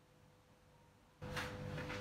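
Near silence, then a little over a second in a steady low hum with a faint steady tone comes in, with a few light clicks.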